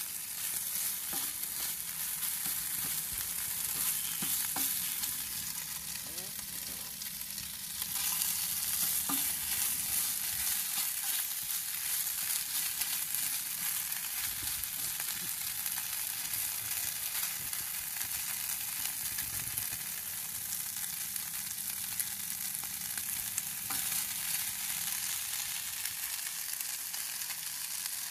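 Chicken pieces sizzling steadily in a nonstick frying pan on a butane camp stove, with occasional clicks and scrapes of silicone tongs stirring them against the pan.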